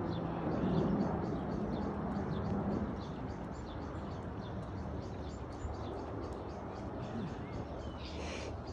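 Low, steady drone of a large transport aircraft flying overhead, fading after about three seconds.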